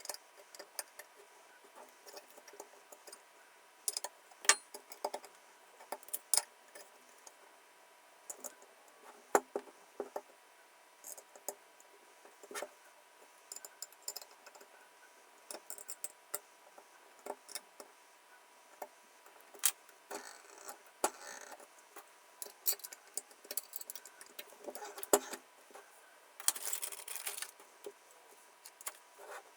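Small hard metal and plastic parts being handled: scattered clicks, taps and light rattles, with a few short scraping sounds, the longest near the end.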